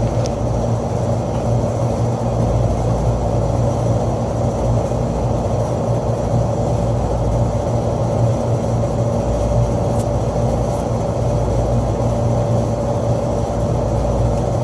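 Rooftop HVAC unit running with a steady mechanical hum and a constant mid-pitched tone, fans turning without change.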